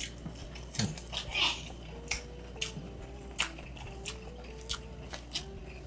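Light, scattered clinks of eating utensils against a plate, about seven sharp ticks a second or so apart, over faint background music.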